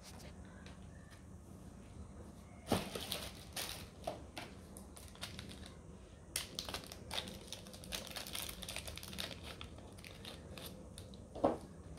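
Clear plastic packaging bag crinkling and rustling as it is handled, in two spells of crackling, with a single knock near the end.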